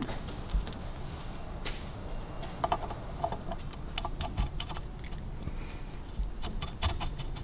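Light metallic clicks and taps from a Harley-Davidson WLC oil pump body being slid onto its mounting studs and seated against the crankcase, coming in small scattered clusters.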